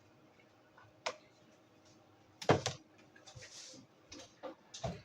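A few knocks and clatters of kitchen things being handled: a light one about a second in, the loudest about two and a half seconds in, another near the end.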